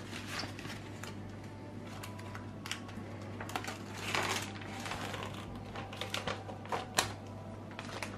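Ready-meal packaging being handled: a cardboard sleeve slid off and the plastic film and tub crinkled, giving scattered small clicks and rustles, with a longer rustle about four seconds in and a sharp crack near seven seconds. A low steady hum runs underneath.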